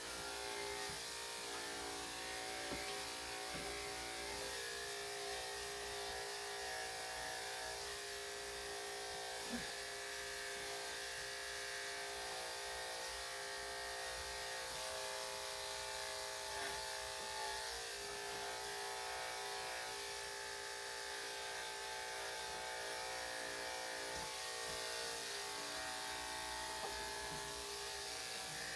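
Electric dog clippers fitted with a #3 3/4 blade running with a steady buzzing hum as they cut through a dog's curly coat.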